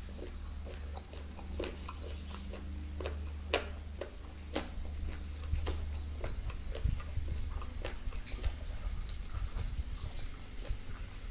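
Close-miked eating sounds: irregular sharp crunches, clicks and smacks of chewing fried chicken, over a steady low hum.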